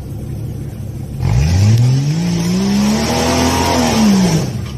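A 4x4 SUV's engine running low, then revving hard under load as it claws up a steep rock ledge. From about a second in the pitch climbs, holds high, then drops away near the end.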